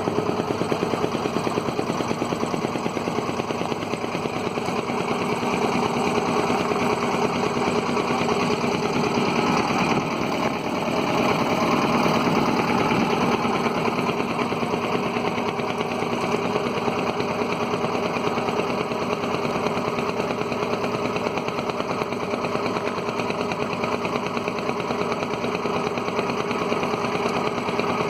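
Boat engine running steadily with a rapid, even knocking beat.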